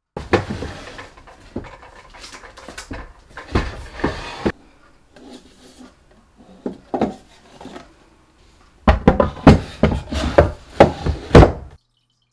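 A wooden storage bin being pulled out of a low solid-wood four-drawer cabinet and handled, with repeated clacks and knocks of wood on wood. The loudest, densest run of knocks comes about nine seconds in.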